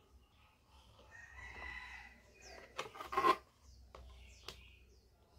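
Thin aluminium drink-can sheet crinkling and clicking as it is handled and pressed together for gluing. The sharpest crinkles come in a quick cluster about three seconds in, with a couple of single clicks after.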